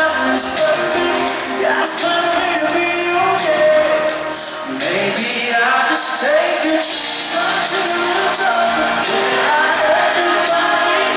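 Live pop music: a male lead singer singing into a microphone over a full band, recorded from among the concert audience.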